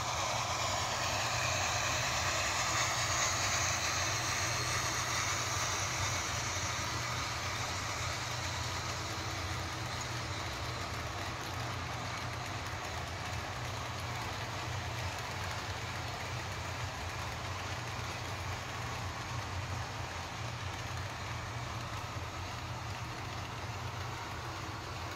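HO-scale model passenger train rolling past on the track. The sound-decoder steam effects of the two doubleheaded Bachmann PRR K4s locomotives fade over the first several seconds as the engines move off, leaving the steady running noise of the passenger cars' wheels on the rails.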